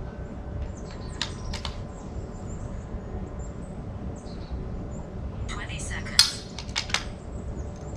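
Scattered metallic clicks and clinks from a .22 rimfire rifle being worked, with a cluster about five and a half to seven seconds in and the sharpest, loudest click near six seconds, over a steady low rumble.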